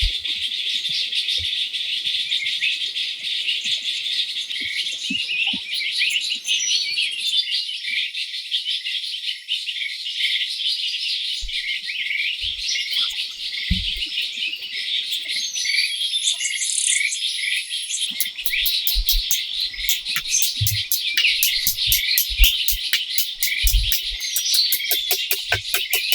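Birds chirping and twittering in a dense, steady chorus. About two-thirds of the way through, an even insect pulsing at about five beats a second joins in, with a few soft low knocks under it.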